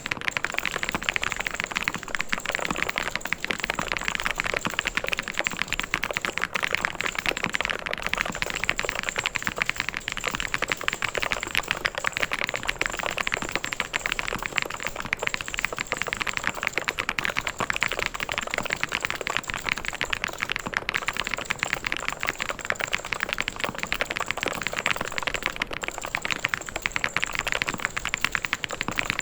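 Mechanical keyboard being typed on fast and without a break: a dense stream of key clicks and clacks.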